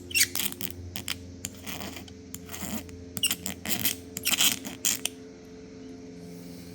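Razor blade scraping cured windshield repair resin off the glass, held at 90 degrees: a series of short, irregular scratchy strokes that die away about five seconds in.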